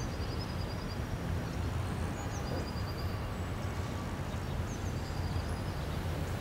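Outdoor ambience: a steady low rumble with small birds chirping short high trills several times.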